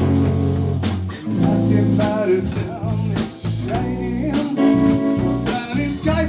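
Blues band playing: electric guitar lines over bass and a drum kit, with regular drum and cymbal hits.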